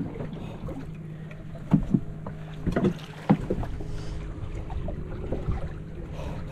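Water slapping and sloshing against the side of a fibreglass panga hull over a steady low hum, with a few sharp knocks on the boat about two and three seconds in.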